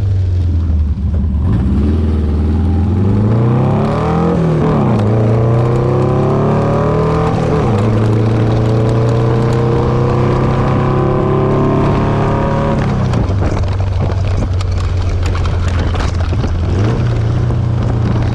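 Buggy Kadron's air-cooled Volkswagen 1600 flat-four engine pulling the car up through the gears: the revs climb, break at a gear change about four seconds in, climb again, and after another shift hold while speeding up gently, then drop back when the throttle is eased about thirteen seconds in. Wind noise rushes through the open car.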